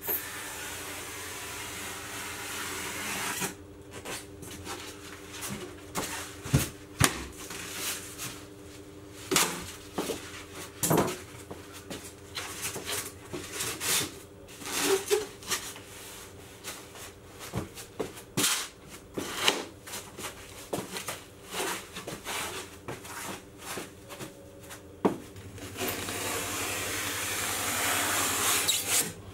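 Extruded polystyrene foam insulation boards being handled and laid on a floor: irregular knocks and taps as boards are set down and butted together, with hissing rubs of foam sliding over foam in the first few seconds and again near the end.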